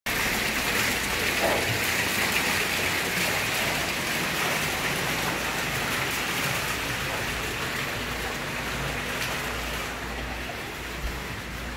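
Water splashing down a stone fountain, a steady rushing that slowly fades over the last few seconds.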